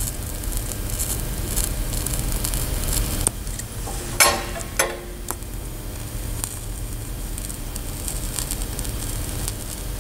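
TIG welding arc joining steel to copper pipe: a steady hiss and sizzle with a low hum underneath. About four seconds in, a brief, louder pitched sound stands out, just after a sharp click.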